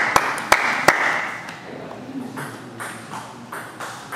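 Table tennis ball clicking sharply a few times in the first second, then fainter scattered taps and clicks.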